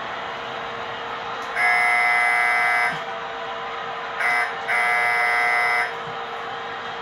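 Model diesel locomotive's electronic horn sound sounding a long blast, a short blast and another long blast, over the steady rolling rumble and hum of the model freight train running on its track.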